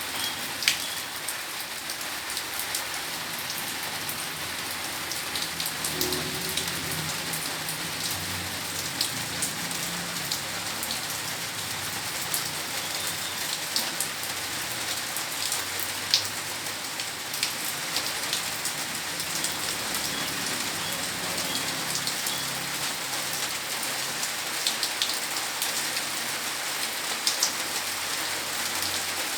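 Steady rain falling, an even hiss with scattered louder drops striking close by, the sharpest about a second in and again around the middle.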